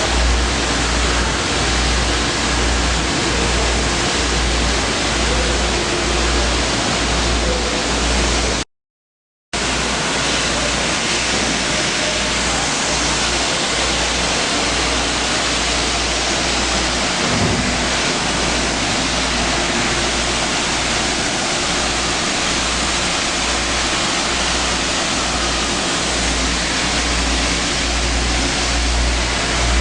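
Plastic crate washing machine running: water spraying with a loud, steady hiss over a low rumble. The sound cuts out completely for about a second roughly a third of the way in.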